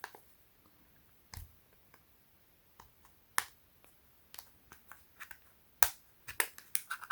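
Scattered short clicks and taps of small gear being handled, a few at first and coming more often in the last few seconds.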